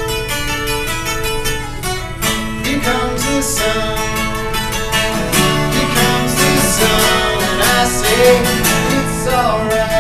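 A man singing a song while strumming an acoustic guitar, the strums keeping a steady rhythm under the voice.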